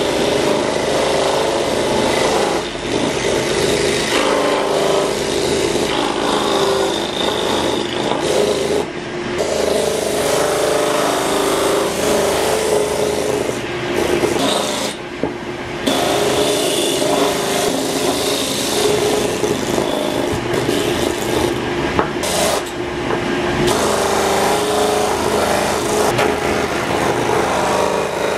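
Belt-driven disc sander running while a piece of wood is pressed against its spinning abrasive disc, giving a steady rasping grind over the machine's hum. The grind eases briefly a few times as the wood is shifted on the disc.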